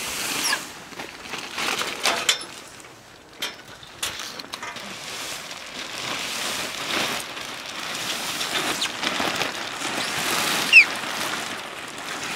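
Polythene greenhouse film crinkling and rustling in uneven swells as it is pulled over the metal hoop frame, with a few small clicks and a brief sharp squeak near the end.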